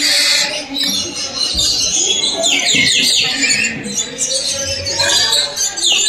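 A flock of lories in an aviary screeching and chattering, with many harsh high calls overlapping. Bursts of quick falling calls come about two and a half seconds in and again near the end.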